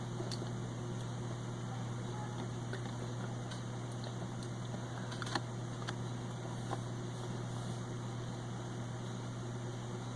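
A steady low electrical hum with an even hiss, broken by a few faint, short clicks, the clearest about five seconds in.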